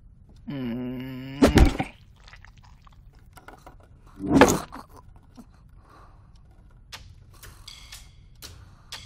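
A low held tone lasting about a second, cut off by a loud thunk; a second heavy thud about three seconds later; then faint light clicks and ticks near the end.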